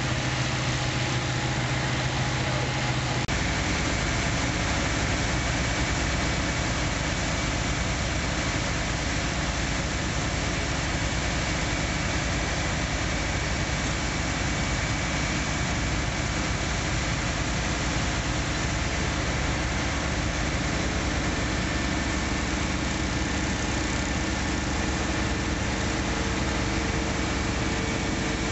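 Fire truck's diesel engine running steadily, a constant mechanical drone; its tone changes abruptly about three seconds in.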